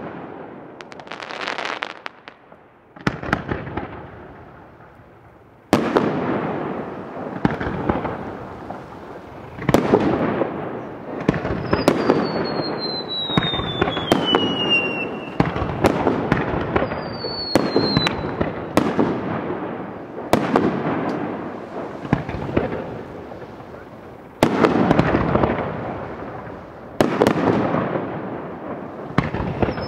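Fireworks display: repeated sharp bangs of shells bursting, each followed by a long crackling rumble. High whistles falling in pitch cut through about 12 and 18 seconds in.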